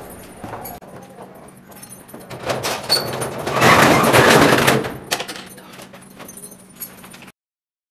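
Keys jangling and clicking at a door lock while a door is unlocked and opened, loudest about halfway through. The sound cuts off suddenly near the end.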